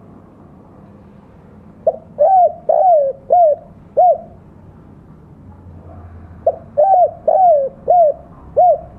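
Spotted dove (tekukur) singing two phrases of its song, about two seconds in and again a little past the middle. Each phrase is a run of about five short coos, the 'kuk 2' (kuk dua) song type.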